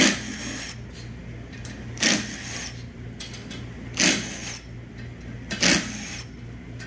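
Cordless power driver backing out the 8 mm bolts of a 6L80 transmission's oil pump stator support: four short bursts about two seconds apart.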